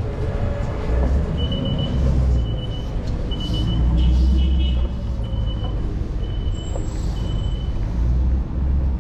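Street traffic noise and wind rumble picked up by a camera on a moving electric scooter's handlebars. About seven short, high electronic beeps repeat roughly once a second from about a second and a half in until near the end.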